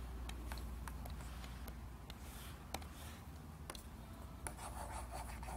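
Stylus nib tapping and sliding on the screen of a Huion Kamvas GT-191 pen display while colouring: faint, scattered ticks and short light scratching strokes over a steady low hum.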